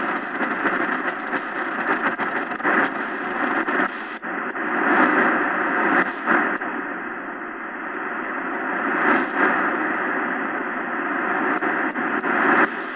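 XHDATA D-901 shortwave radio's speaker playing a noisy shortwave signal: a rushing hiss that swells and fades like ocean waves, which the listener guesses may be a fax signal.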